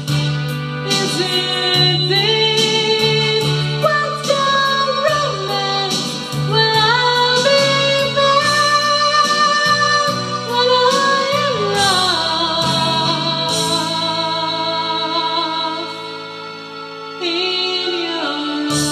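A female singer singing a slow song over instrumental backing, holding long, sliding notes with vibrato.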